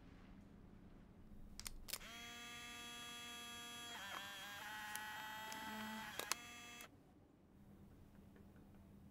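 An instant camera fires with a click, then its motor whirs for about five seconds as it pushes out the print. The whir shifts pitch about halfway through and stops with a couple of clicks.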